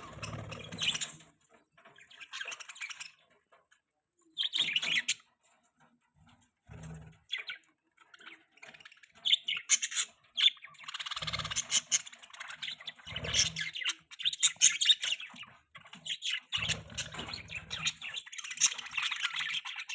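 Budgerigars chirping and chattering in irregular bursts, sparse at first and nearly continuous from about nine seconds on, with a few brief low thumps mixed in.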